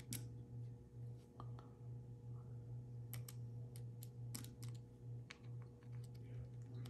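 Scattered light clicks and taps of a small screwdriver and tiny screws being handled while a smartphone is taken apart, with a quick cluster of clicks a little under halfway through. A steady low hum runs underneath.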